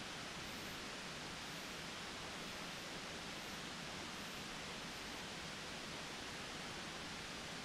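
Steady, even hiss of background noise with no distinct sounds standing out.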